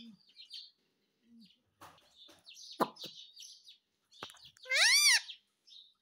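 Rose-ringed (Indian ringneck) parakeet calling: soft chatter and a sharp click, then about five seconds in one loud call that rises and falls in pitch over about half a second.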